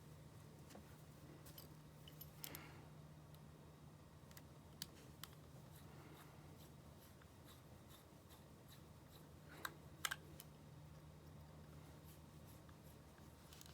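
Near silence with a steady low hum, broken by a few faint clicks and taps of small objects being handled, the loudest pair about ten seconds in.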